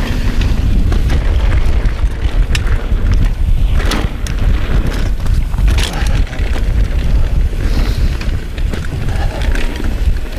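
Wind buffeting a chest-mounted action camera's microphone as a mountain bike rolls fast down a dirt trail, with the rumble of the tyres on dirt and sharp clicks and rattles from the bike every second or so.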